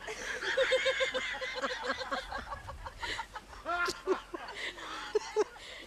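A person's voice making a quick run of short pulses, about five a second, then a few separate rising and falling vocal sounds.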